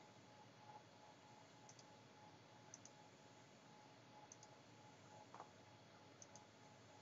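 Near silence: faint room tone with a few soft computer-mouse clicks, each a quick double tick of press and release, coming at uneven gaps of one to two seconds, over a faint steady hum.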